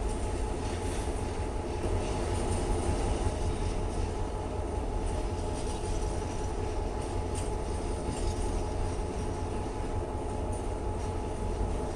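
Container freight train's wagons rolling past on the rails: a steady rumble with a faint hum.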